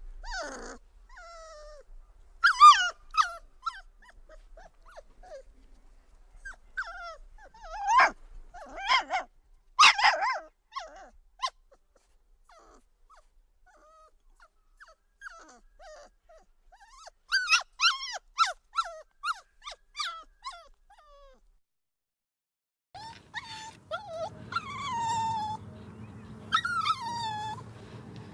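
Puppy whimpering and yipping: clusters of short, high-pitched yelps and whines, loudest around 2–3 s and 8–10 s in, with another cluster about 17–21 s in. After a brief silence, longer whines falling in pitch come over a low steady hum near the end.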